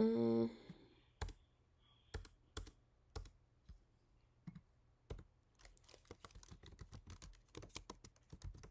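Computer keyboard being typed on: a few separate key presses or clicks spaced out at first, then a quick run of keystrokes over the last few seconds as text is typed in.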